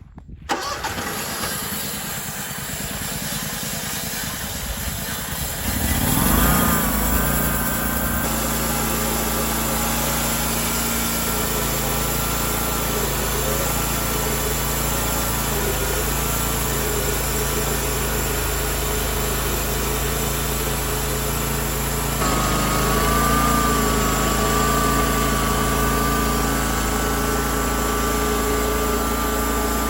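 Homemade sawmill's engine coming up to speed about six seconds in, then running steadily. About three quarters of the way through its pitch steps up a little and stays there.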